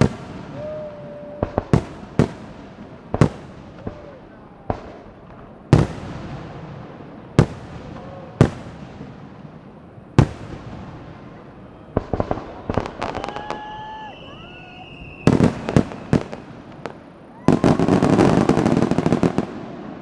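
Fireworks display: aerial shells bursting one after another, about a dozen sharp booms, each with an echoing tail. Near the end comes a dense crackling salvo lasting about two seconds.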